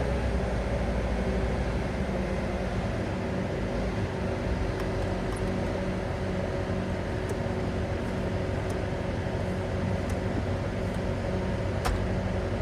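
Bobcat S770 skid steer's diesel engine running steadily, with a few faint clicks over it, the sharpest near the end.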